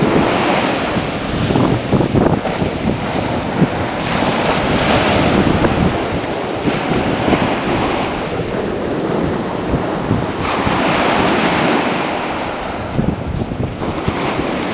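Ocean surf breaking and washing up the beach, swelling and fading every few seconds, with wind buffeting the microphone.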